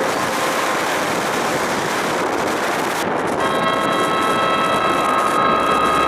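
Speedboat running at speed: a rushing noise of wind and water, then about three and a half seconds in a steady engine drone with a high, even whine joins it.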